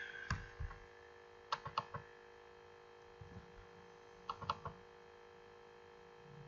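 Faint computer mouse clicks in two small groups of about three, a little past a second in and again past four seconds, over a steady low hum.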